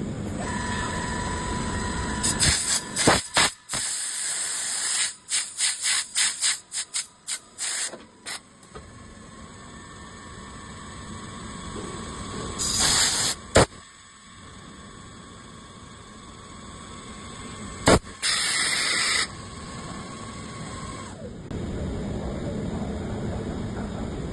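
CNC lathe with a rear spindle running through a machining cycle, its steady running noise broken by blasts from a compressed-air blow gun. There is a longer blast about two seconds in, then a quick string of short blasts, and two more bursts later on.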